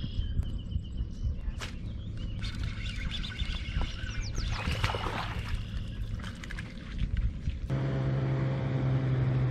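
Wind rumbling on the microphone, with small birds chirping and trilling. About three-quarters of the way in, a steady pitched hum starts abruptly, typical of a bass boat's electric trolling motor running.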